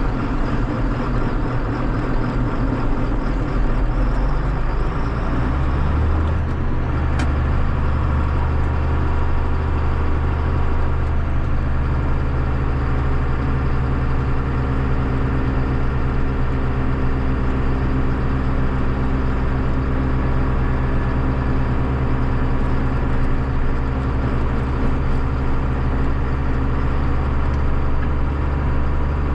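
John Deere farm tractor's diesel engine running steadily under way. Its engine note changes about six seconds in and again around eleven seconds.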